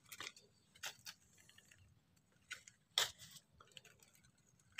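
Hand pruning shears snipping small durian branches: a few short, sharp clicks at uneven intervals, the loudest about three seconds in.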